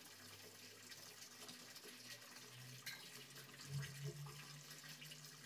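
Faint dripping and splashing of water as raw chicken pieces are washed by hand over a pot of water. A faint low hum comes in during the second half.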